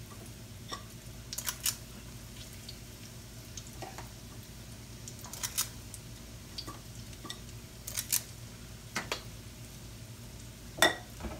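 Hush puppies frying in a wok of hot oil with a faint sizzle, while a metal batter scoop clinks against the bowl and pan every second or so, the sharpest clink near the end. A steady low hum runs underneath.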